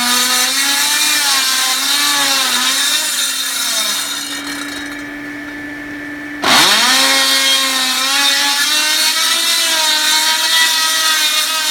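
A handheld power cutting tool sawing through roofing material, its motor pitch wavering as the blade is loaded. About four seconds in the cutting noise drops away and the motor runs lighter and steadier. At about six and a half seconds the blade bites back in, with a sharp dip in pitch and the loud cutting noise resuming.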